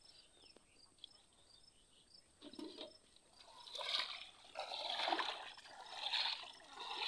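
Water splashing as a person wades waist-deep in a shallow muddy pond and sweeps the surface by hand. It starts about four seconds in, as a series of splashes roughly once a second.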